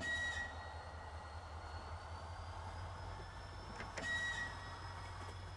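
ES2G Lastochka electric train running, heard from on board: a steady low rumble under a thin high electric whine that climbs in pitch from about two seconds in, as the train gathers speed. Two short beeps sound, one at the start and one about four seconds later.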